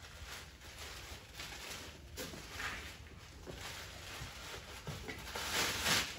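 Blue plastic tarp rustling and crinkling as it is worked over a mule's head and neck, in irregular surges, the loudest rustle near the end as it is pulled off her head.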